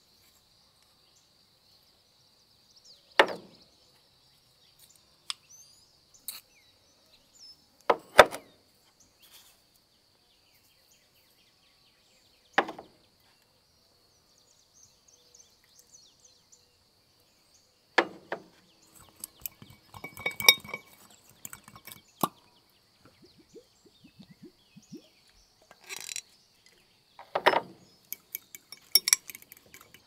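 Scattered sharp knocks and clinks of cooking work, about nine of them spread a few seconds apart, some in quick clusters near the middle and end, over a faint steady high-pitched tone.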